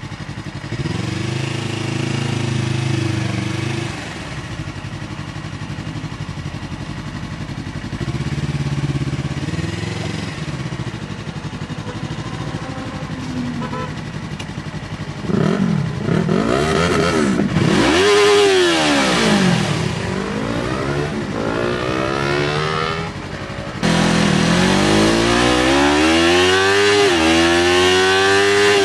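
Yamaha R3's parallel-twin engine through an SC-Project aftermarket exhaust, on a motorcycle being ridden. For about the first half it runs at low revs. Then the engine is opened up, with the pitch climbing and falling several times as the bike accelerates through the gears, and it gets louder again near the end.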